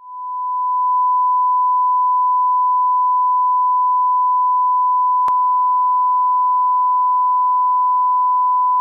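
Steady 1 kHz sine test tone of the kind that goes with a television test pattern. It fades in over the first second and then holds at one pitch, with a faint click about five seconds in.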